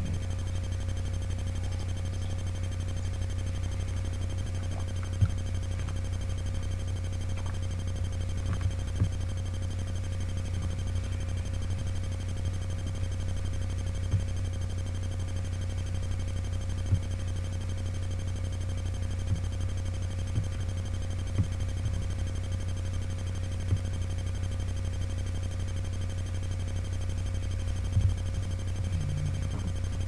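Steady low electrical hum, with about eight short knocks or taps at irregular intervals.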